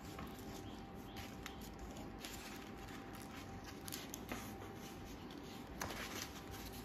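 Faint rustling and crinkling of stiff chart paper being handled and rolled, with a few short sharper crackles.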